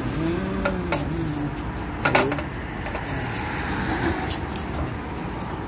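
Light clinks and knocks of metal and plastic parts being handled and pushed into place, with a sharper knock about two seconds in, over a steady background hum.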